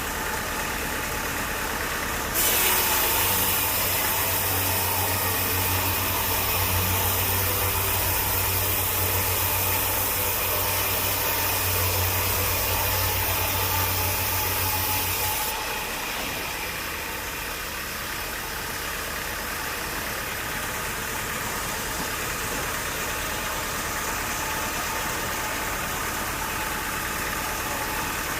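An engine running steadily. The sound changes abruptly twice, about two seconds in and again about halfway through, when a louder stretch with a pulsing low hum gives way to a quieter one.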